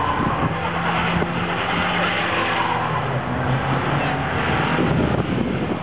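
Moskvich car's engine running under load as it is driven around a tight course of tyre markers, its note shifting higher and lower through the turns.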